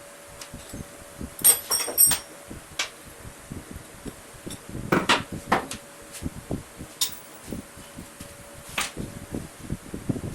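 Scattered knocks and clatter of wood pieces and tools being handled at a workbench, with a few ringing metallic clinks about one and a half to two seconds in, over a faint steady hum.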